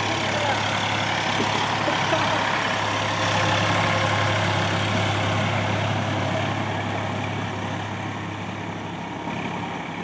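Small electric motor and gearbox of a homemade toy backhoe loader running steadily as the toy drives along, easing off a little in loudness near the end.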